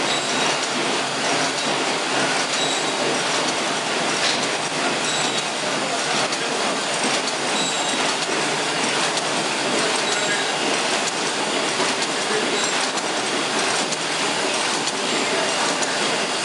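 Sewing machine running steadily without a pause, a dense even mechanical noise.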